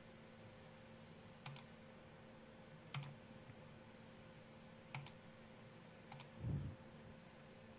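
Faint, widely spaced computer mouse clicks, four single clicks a second or two apart, with a soft low thump near the end over a faint steady electrical hum.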